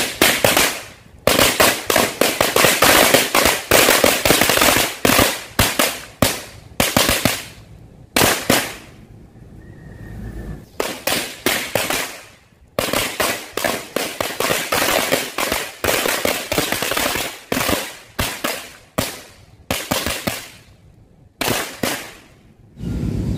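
A pack of small match-type firecrackers (petasan korek) going off on the ground in runs of rapid crackling bangs. There are a few short lulls, the longest about nine to eleven seconds in, and the bangs die out just before the end.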